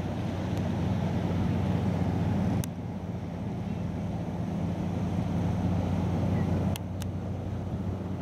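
Fishing boat's diesel engine droning steadily as it passes at speed, with water rushing along the hull from its bow wave. Sharp clicks come about two and a half seconds in and twice near the end, each followed by a slight drop in level.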